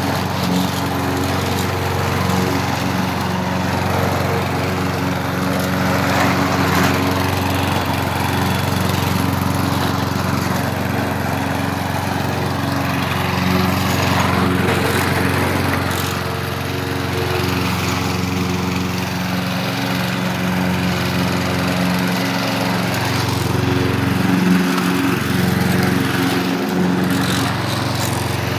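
2015 Lawn-Boy walk-behind lawn mower's gas engine running steadily under load while mowing grass.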